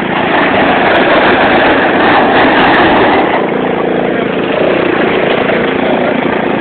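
Small youth quad bike engine running as it pulls past and rides away. It is louder for the first three seconds or so, then fainter.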